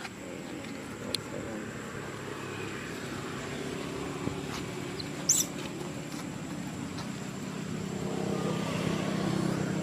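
A motor vehicle's engine running steadily and growing louder over the last few seconds, with a few faint clicks and one short high squeak about five seconds in.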